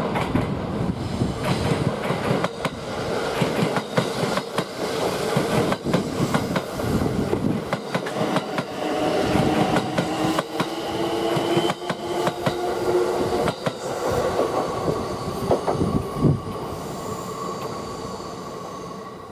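Kintetsu 23000-series Ise-Shima Liner electric train passing through a station at low speed, its wheels clicking steadily over the rail joints. Steady whining tones come in through the middle of the pass, and the sound fades as the last cars go by.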